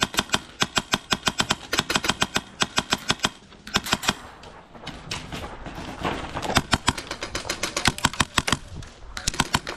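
Airsoft guns firing in rapid strings of sharp shots from more than one player, with a short lull about halfway through and fewer shots near the end.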